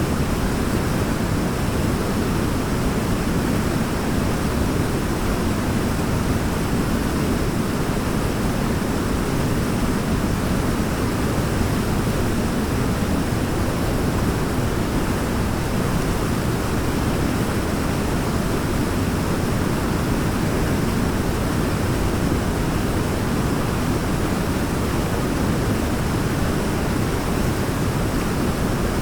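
Waterfall: water falling and splashing in a steady, unbroken rush, heaviest in the low end.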